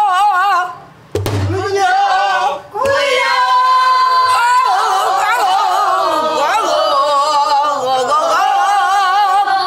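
A woman sings pansori with a wide, wavering vibrato, keeping time herself on a buk barrel drum. After a brief break, one drum stroke lands about a second in, then the voice returns in long held notes.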